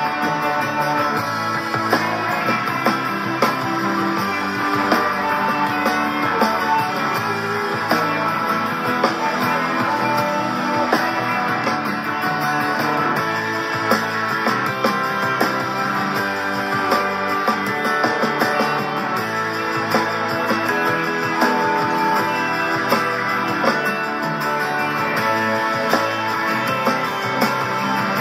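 A guitar being played continuously, with no pauses.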